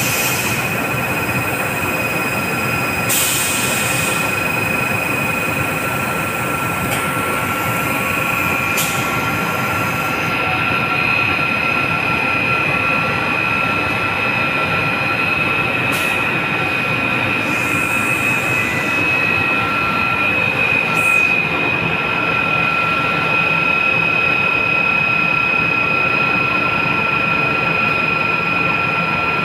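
Thyssenkrupp KB 1750 batch sugar centrifugal running, its basket and spindle spinning with a loud, steady whir and a constant high whine. A few brief hisses break in.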